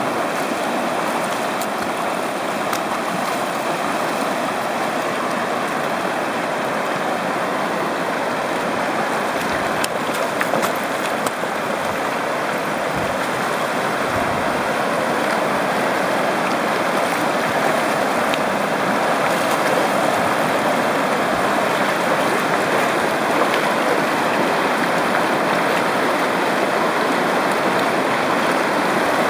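Shallow river running fast over a cobble riffle close by: a steady, even rush of water.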